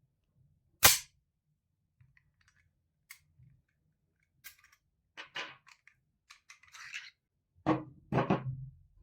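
Metal parts of a pistol being handled. A single sharp metallic snap comes about a second in, then scattered small clicks and scrapes, and two louder metallic clacks near the end.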